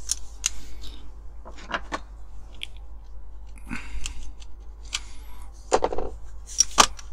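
Small screwdriver prying and scraping at the metal baseplate of a diecast toy car to lever it free after its rivet has been drilled out: a string of irregular clicks and scrapes of metal on metal.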